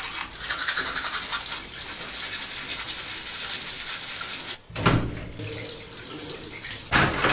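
Water running from a bathroom tap into the sink as someone brushes his teeth. A sudden loud thump about five seconds in.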